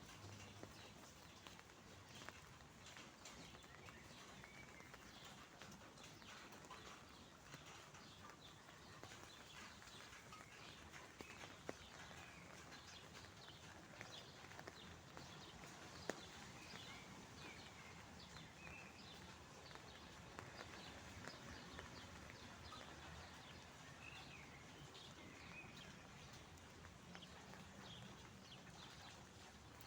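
Faint park ambience with birds chirping: a low steady background with scattered short chirps and a few brief whistled notes, plus a couple of single clicks.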